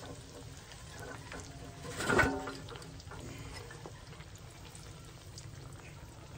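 Crappie fillets frying in shallow oil in a steel disc-blade wok: a steady sizzle with small crackles, the oil not yet as hot as the cook likes. About two seconds in comes a brief louder knock with a short ring.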